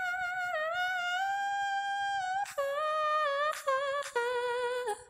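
A woman singing a cappella without words, in a pop-singer impression: a long held note that bends down and back up, then a run of shorter notes stepping lower, ending about five seconds in.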